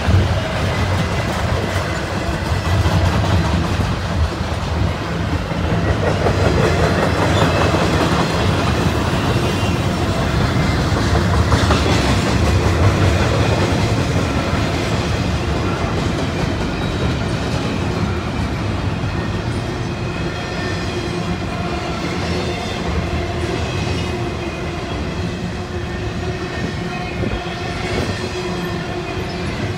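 Double-stack intermodal well cars of a long freight train rolling past: a steady rumble with the clickety-clack of wheels over the rail. Thin, steady squealing tones run over it in the second half.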